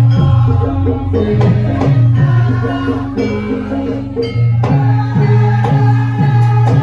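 Javanese gamelan music accompanying a lengger dance: sustained low gong tones under a steady drum beat of about two strokes a second, with melodic metallophone lines above.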